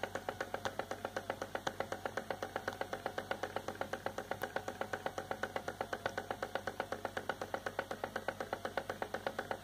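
Model Ringbom Stirling hot-air engine running steadily, its flywheel turning fast and the mechanism giving a rapid, even ticking of about eight beats a second.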